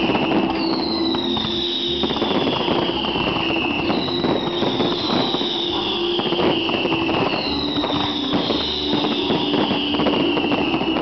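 Fireworks display with dense crackling and scattered bangs, over music. A high whistling tone slides downward about every three and a half seconds.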